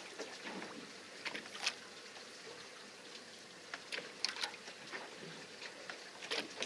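Faint water lapping and trickling against a small boat's hull, with a few scattered light clicks at uneven times.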